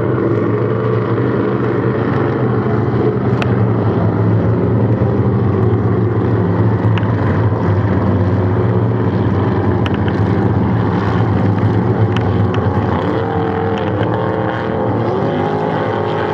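Several Cracker Box inboard race boats running hard in a pack across the water, a steady engine drone whose pitch wavers and shifts as the boats pass.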